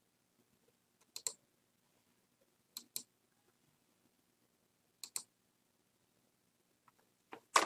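Computer mouse button clicks: four pairs of quick clicks, spaced about two seconds apart, the last pair the loudest.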